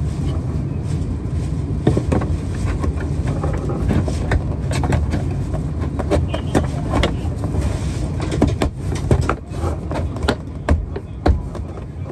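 Short clicks and knocks of a plastic overhead-bin latch handle being handled and fitted into the bin door, scattered through the middle and latter part, over a steady low rumble.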